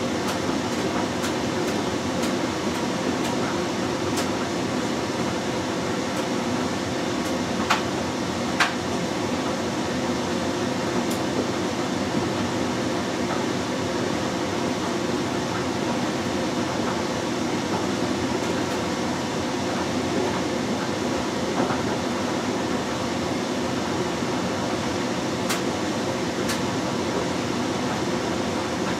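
LG Direct Drive 6 Motion front-loading washing machine in its main wash, the drum turning and tumbling laundry through sudsy water with a steady sound. A few sharp clicks stand out: two about eight seconds in and one later.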